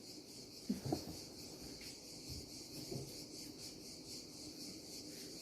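Insects chirping steadily in a fast, even pulse, with a few soft low knocks about a second in and again about three seconds in.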